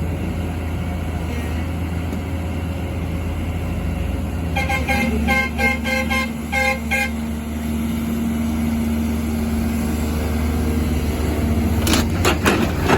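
Heavy machine's engine running steadily, with a vehicle horn sounding a rapid run of short toots about a third of the way in. A brief clatter comes near the end.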